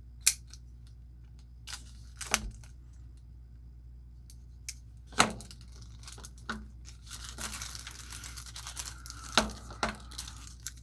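Clear plastic bag being torn open and crinkled by hand to free a wristwatch. There are a few sharp clicks and snaps, then a longer stretch of crinkling in the second half.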